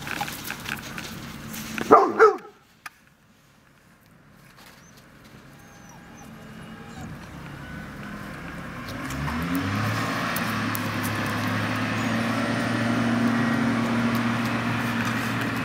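A dog gives two quick, loud barks about two seconds in. After a brief lull, a motor hum builds up, rises in pitch and then runs steadily through the second half.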